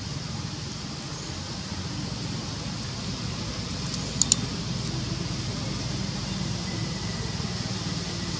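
Steady outdoor background noise, a low rumble with a hiss above it, broken by two sharp clicks close together about four seconds in.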